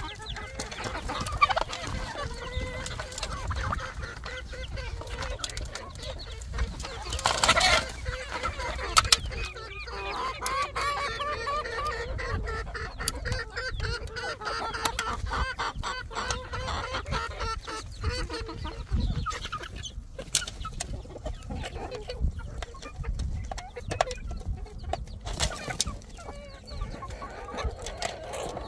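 Birds calling continuously in short, repeated calls, with a few brief, sharper sounds standing out.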